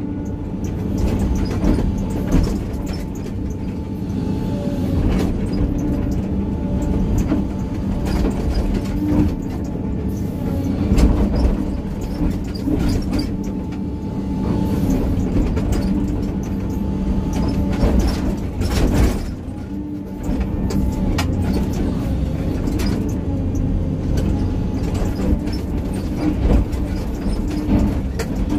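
Hydraulic excavator's diesel engine running steadily under working load while grading, with occasional knocks through it.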